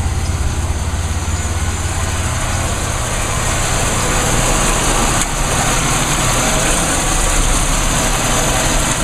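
Pontiac Grand Am GT's 3400 V6 idling steadily, with the rush of the electric radiator cooling fans running in low speed. The fans get a little louder from about three seconds in, and there is one brief click just past the middle.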